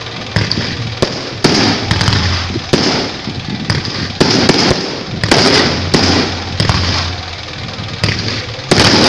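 Aerial fireworks going off in quick succession: a dozen or so sharp bangs at uneven intervals, about half a second to a second apart, over a continuous crackling hiss.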